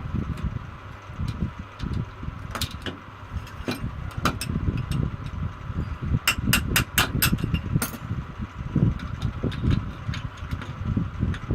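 Irregular clicks and sharp metal knocks from tools and parts being handled on a semi-automatic box strapping machine under repair, with a quick run of about eight knocks a little past the middle, over a low uneven rumble.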